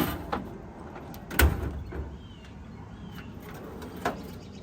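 Metal toolbox drawers and tools being handled: clicks and clanks, with a heavy knock about a second and a half in, and a sliding, drawer-like rumble.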